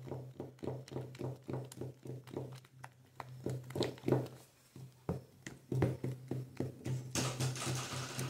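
Wooden spoon stirring a homemade detergent mix of caustic soda and hot water in a plastic bucket, knocking against the sides about three times a second. A swishing noise comes near the end.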